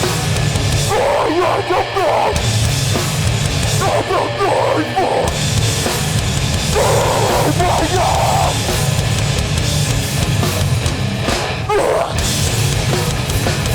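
Metallic hardcore band playing live: heavy distorted guitars and bass with pounding drums, and shouted vocals coming in short bursts every few seconds.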